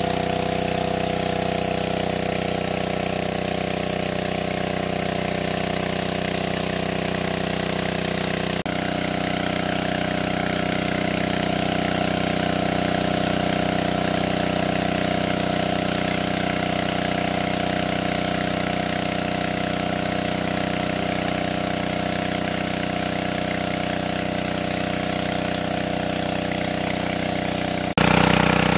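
Hyundai petrol-engine water pump running steadily at a constant speed while pumping. A little before the end it becomes suddenly louder.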